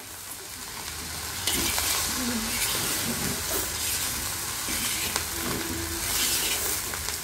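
Egg fried rice sizzling in a large black kadai as it is stirred and tossed with a steel spatula, the metal scraping and clicking against the pan. The sizzle grows louder about a second and a half in.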